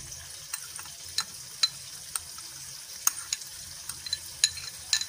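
Metal spoon clinking and scraping against a bowl while scooping thick mayonnaise out: a dozen or so irregular light clicks, some with a short ringing note.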